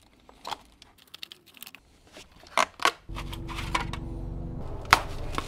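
Plastic clicks and knocks as a BMW E46 door mirror and its trim parts are handled and worked apart. About three seconds in, a steady low hum sets in underneath, with one sharp click near the end.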